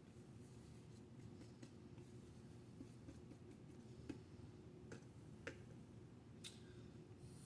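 Near silence: low room hum with a few faint, sharp clicks and taps, spaced irregularly through the middle and latter part.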